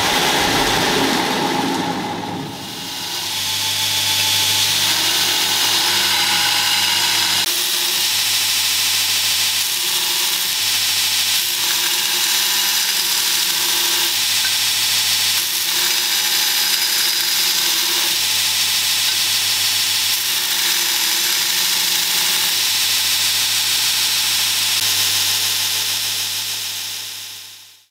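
Electric belt grinder running, its abrasive belt grinding the steel of a knife blank made from an old file: a steady grinding hiss over the low hum of the motor. The sound dips briefly about two seconds in and fades out at the end.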